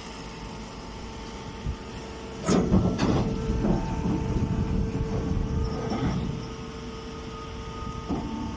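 Baling machine running with a steady motor hum. About two and a half seconds in it starts a loud, rough mechanical clatter with a couple of sharp knocks, which eases off near the end.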